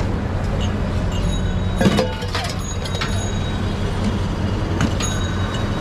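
Steady engine hum of street traffic, with a sharp clink about two seconds in and a lighter one near the end, from bottles and steel vessels being handled at the stall.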